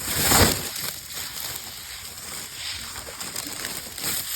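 A gust of wind buffeting the phone microphone with a loud rush in the first second, then dry leaves rustling and crackling.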